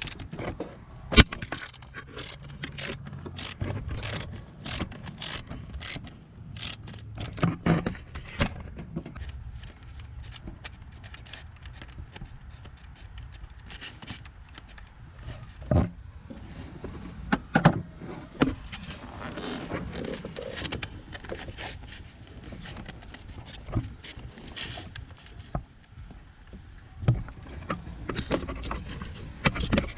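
Ratchet clicking in an even run of short strokes, a 7mm socket backing out a coil-pack hold-down bolt, followed by scattered metal clanks and scrapes of tools.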